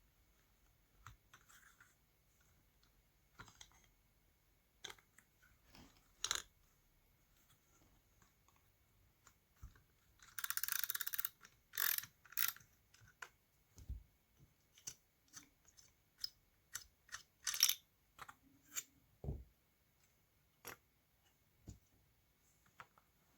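Scattered light clicks and taps of small metal parts and a screwdriver as screws are fitted back into a vacuum cleaner motor, with a brief rasp a little before the middle.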